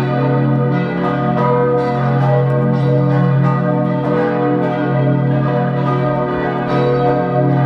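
Several church bells ringing together in a full peal, their strikes overlapping into a continuous ring with a steady low hum beneath. The peal is rung to mark the start of a confirmation service.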